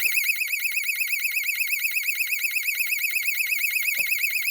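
Self-activating alarm bell box (SAB) sounder going off: a loud, high electronic siren warbling rapidly, many times a second, without a break. A faint click comes near the end.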